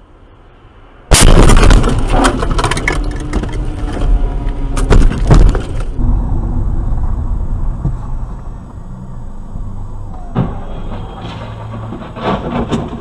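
A car collision recorded by a dashcam. About a second in, a sudden, very loud impact overloads the recording, and several seconds of clattering knocks of crumpling bodywork and debris follow. Then comes steady road noise with a few sharp knocks of another crash near the end.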